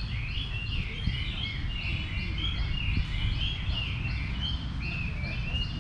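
Caged songbirds singing against each other in a song contest, a quick run of short repeated whistled notes from several birds overlapping, over a steady low rumble.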